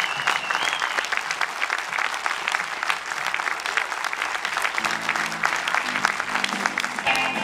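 Audience applauding, with a few held instrument notes sounding over the clapping near the end.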